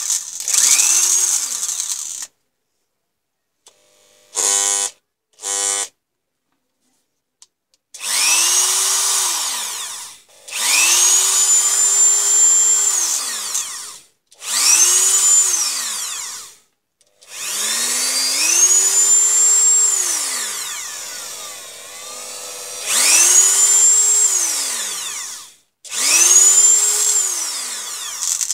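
Dremel 3000 rotary tool's small electric motor switched on and off about seven times: each run is a whine that rises to full speed, holds for one to three seconds and falls away as the motor coasts down. Two very short blips of the motor come a few seconds in.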